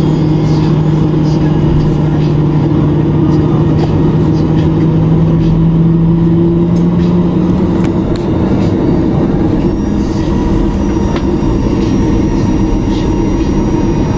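Cabin noise of a Boeing 737-900ER taxiing, heard from a seat over the wing: the steady rumble of its CFM56 jet engines at taxi power. A strong low hum rises slightly in pitch and then fades about eight seconds in.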